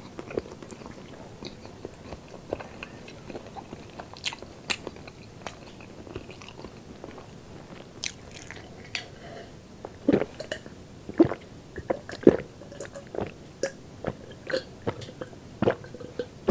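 Close-miked mouth sounds: small chewing clicks and lip smacks at first, then, from about ten seconds in, a run of gulps about once a second as a drink is swallowed from a glass jar.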